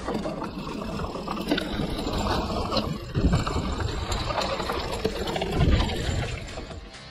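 Hardtail e-mountain bike rolling fast down a dirt forest trail: a steady rumble of the tyres over dirt and roots, with two heavy thumps from bumps, about three seconds in and again near six seconds.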